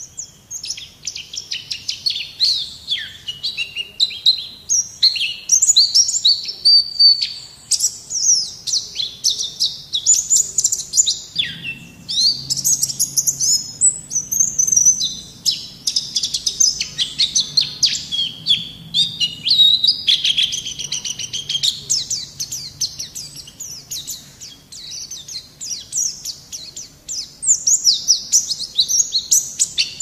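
White-eye (pleci) singing nonstop in full 'gacor' form: a fast, high-pitched twittering song of quick chirps, trills and short pitch slides, running on with barely a pause.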